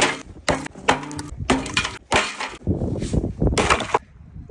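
Axe chopping through the ice crust on a galvanized steel stock tank: repeated hard blows about two a second, each with ice cracking and shattering, several leaving a short metallic ring from the tank.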